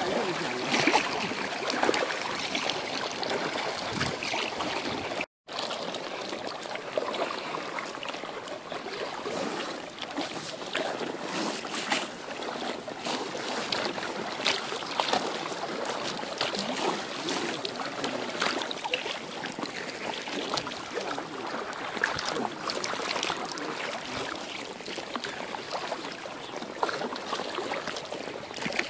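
Kayak paddles dipping and splashing in river water, with water trickling and lapping against the inflatable hull. The sound cuts out briefly about five seconds in.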